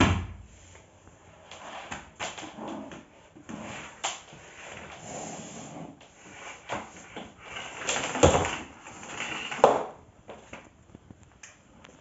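Irregular knocks, scrapes and short squeaks as a bagless canister vacuum cleaner's floor nozzle, hose and canister are handled and moved over a laminate floor, with no steady motor noise. A sharp knock comes at the start, and the loudest bumps come about eight and ten seconds in.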